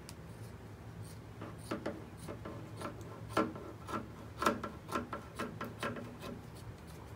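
Scissors cutting through T-shirt fabric along the sleeve seam: a string of short, irregular snips, starting about a second and a half in.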